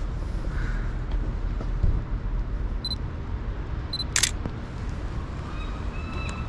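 Sony A7C mirrorless camera beeping twice as autofocus locks, the beeps about a second apart, then a single shutter click right after the second beep. Under it runs a steady low rumble of street traffic.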